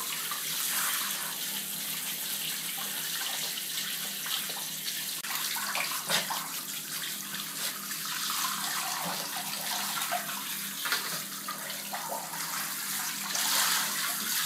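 Handheld shower head spraying water over a small dog in a shower stall: a steady hiss of running spray, with a couple of brief knocks partway through.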